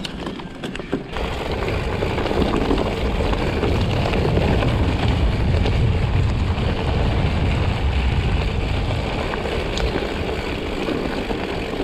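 Mountain bike rolling fast over rough trail: tyres rumbling and the bike rattling, with wind buffeting the microphone. It grows louder about a second in, with occasional sharp knocks.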